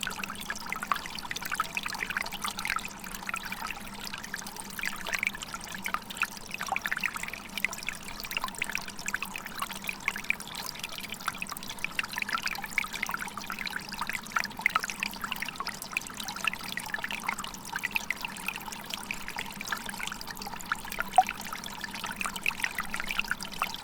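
Waterfall: water pouring and trickling steadily, with many small splashes.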